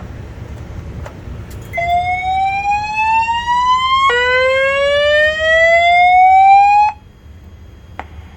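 Voice-evacuation fire alarm speakers sounding the whoop alert tone: two rising sweeps, each about two and a half seconds long, starting a little under two seconds in and cutting off sharply near seven seconds. This is the fire evacuation signal that comes before the recorded 'report of a fire' announcement.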